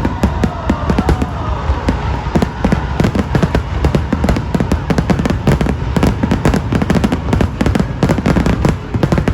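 Fireworks display: a dense, continuous barrage of bangs and crackles, several reports a second, over a low rumble.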